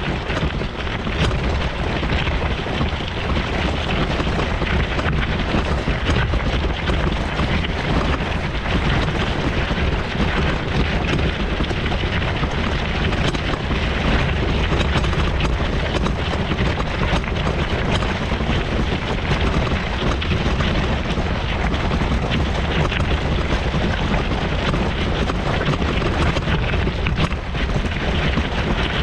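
Continuous loud rumbling noise of a mobility scooter ride over a rough country path: wind buffeting the action camera's microphone mixed with the jolting of the ride.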